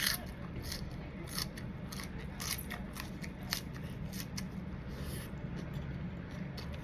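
Close-miked crisp crunching while eating, with irregular sharp crackles a few times a second over a low steady hum.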